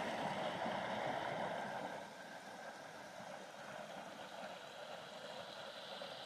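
A shallow, rocky creek running over a low shale ledge, a steady rush of water that is a little louder for the first couple of seconds.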